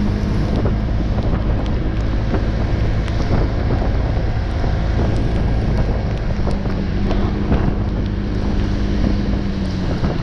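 Honda PCX 125 scooter's single-cylinder engine running at a steady note while riding, with wind buffeting the microphone and tyres hissing on a rain-wet road.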